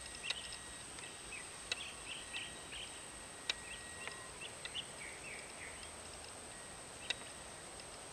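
Quiet outdoor ambience: small birds chirping in short calls through the middle, over a steady high-pitched whine, with a few soft clicks.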